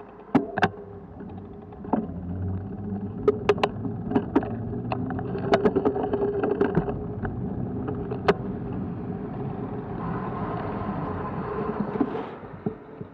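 Ride noise picked up by an action camera on a moving bicycle: steady wind and tyre noise with many sharp knocks and rattles from bumps in the path. Near the end a car-transporter truck passes close by, its noise rising for a couple of seconds and then dropping off suddenly.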